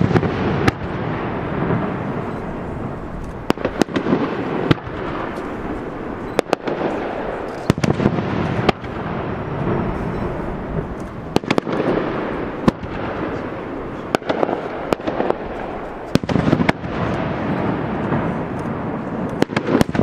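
Fireworks display: many sharp cracks at irregular intervals over a continuous rumble of bursts.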